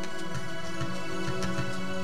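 Background music: soft sustained tones held over a gentle low pulse.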